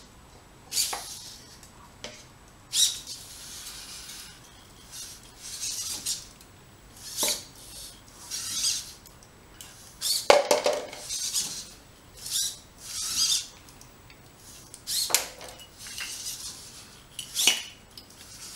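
Servo motors of a Bioloid-kit robot arm whirring in short bursts, one every second or two, as the arm copies its wearer's gestures. Several bursts start with a sharp click, and a louder clatter comes about ten seconds in.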